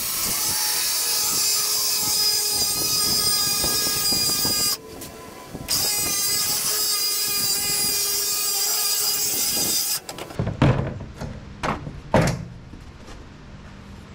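DeWalt cordless circular saw running steadily while ripping a sheet of plywood, with a brief break about five seconds in. The saw stops about ten seconds in, followed by a few loud knocks and thumps as the cut board is lifted and the saw set down on the plywood.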